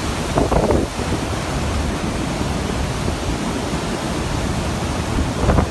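Hurricane Irma's wind buffeting the microphone with a heavy, steady rumble over the rush of storm-surge water churning through a flooded street.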